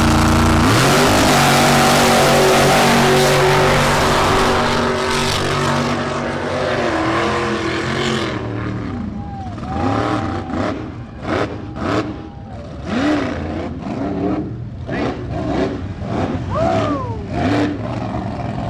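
Supercharged alcohol-burning mega truck engine revving up and running at high revs. After about eight seconds it drops back to more distant engine noise, with voices shouting over it.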